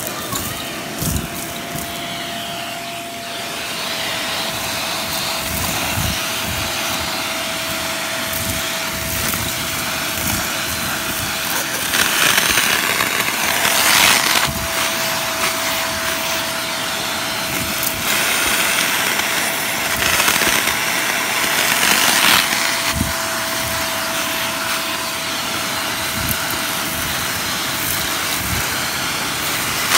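Shark vacuum cleaner running with a steady whine, its wand nozzle sucking up dry dirt and debris with a crunching, crackling rattle as bits go up the hose. The rush of air grows louder twice around the middle.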